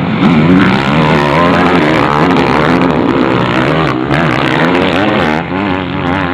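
Motocross bike engines revving hard as the bikes race through a dirt-track corner and accelerate out of it. Several engine notes overlap, their pitch repeatedly rising and falling with the throttle and gear changes.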